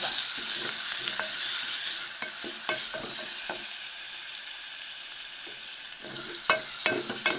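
Onions and crushed garlic sizzling in hot oil in a cooking pot while they are stirred, the spoon knocking and scraping against the pot now and then. The sizzle is strongest at the start and eases a little, with a cluster of spoon knocks near the end.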